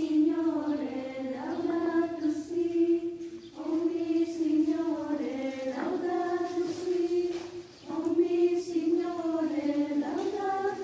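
Background music of slow, chant-like singing in long held phrases, with brief breaks about three and a half seconds in and again near eight seconds.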